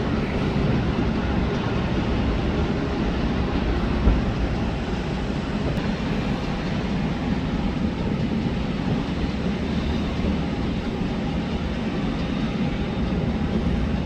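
Steady, loud rumble of jet airliner engines, easing slightly after about four seconds, with one brief knock about four seconds in.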